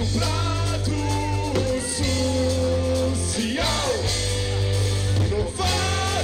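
A live band playing a rock song, with a man singing over a heavy, steady bass line.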